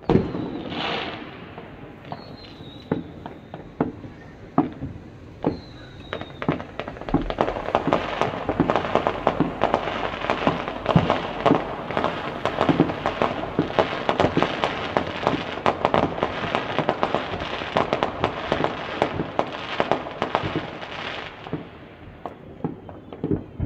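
New Year's Eve fireworks going off across a town: a bang at the start, two short whistles, then from about seven seconds in a long stretch of dense popping and crackling bangs that dies down near the end.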